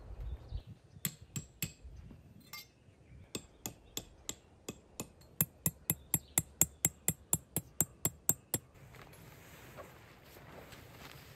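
A metal hammer driving a metal tent stake into the ground: sharp metallic taps, a few slow ones first, then a steady run of about four strikes a second that grows louder and stops abruptly about three-quarters of the way through.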